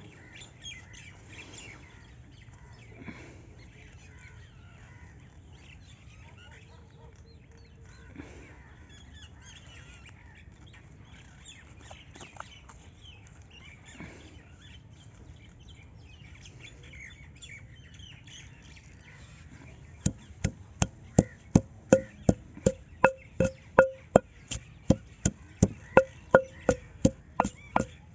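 Faint bird chirps over a quiet outdoor background, then about twenty seconds in a long wooden pestle starts pounding fresh coriander and leaves in a stone mortar: sharp, evenly spaced knocks, about three a second.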